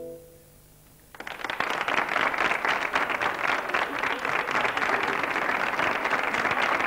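The last acoustic guitar chord dies away, then about a second in a studio audience breaks into applause, with many hands clapping steadily.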